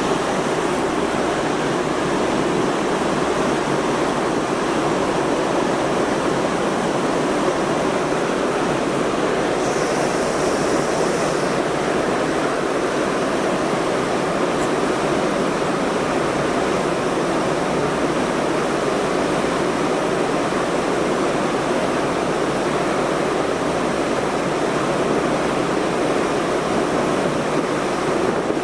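Steady rushing noise of wind and sea on the open top deck of a car ferry under way, even and unbroken throughout.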